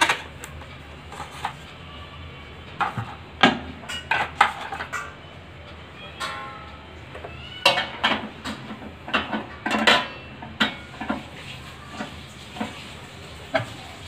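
A microwave's glass turntable plate and roller ring being handled and fitted: scattered clicks, knocks and light clinks, with a busier run of clatter from about halfway through.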